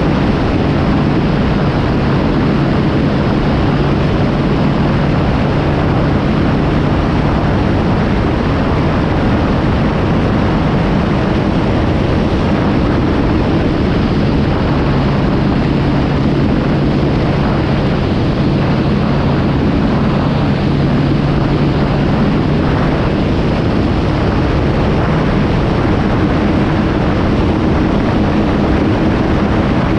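Kawasaki Z750 motorcycle engine running at steady cruising speed on the road, its engine note holding nearly level under a constant rush of wind and road noise.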